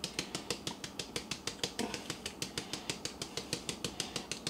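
Parmesan being put on a plate of pasta: a fast, even run of light clicks, about seven a second.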